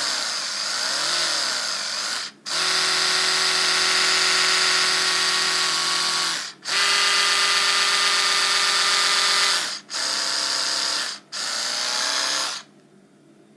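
Oral-B Genius 8100 electric toothbrush running in several short runs with brief pauses between them. The first run has a wavering, pulsing hum and the later runs a steady hum, typical of the brush being stepped through its cleaning modes. It switches off near the end.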